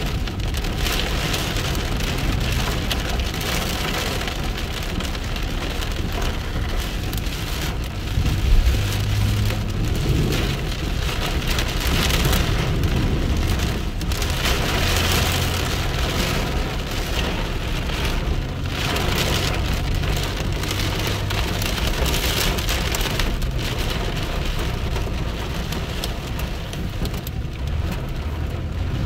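Heavy rain pouring down and drumming steadily on surfaces, with a low rumble underneath that swells briefly about eight seconds in.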